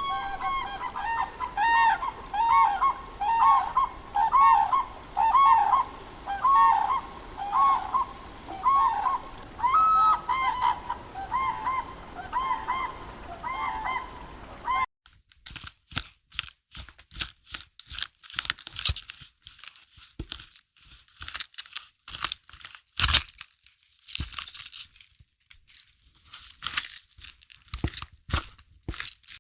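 Bird calls repeated about twice a second, each a short pitched honk-like note. About halfway through they cut off abruptly and give way to irregular sharp clicks and knocks.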